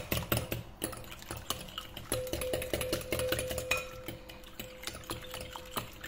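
Metal hand whisk beating raw eggs in a glass bowl to a froth: a rapid, irregular clicking of the wires against the glass, getting gradually quieter.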